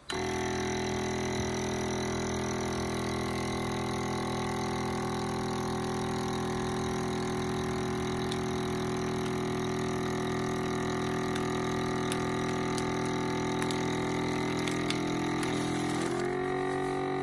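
Cabela's 15-inch commercial-grade vacuum sealer's pump running steadily as it draws the air out of a sealer bag on its moist auto vac-seal setting. The pitch rises a little near the end.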